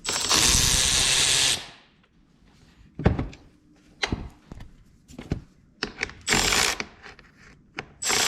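Handheld power driver running in two bursts, a long one at the start and a shorter one about six seconds in, backing out the bolts that hold the dash on an ATV. A few sharp clicks and knocks of parts being handled fall between the bursts.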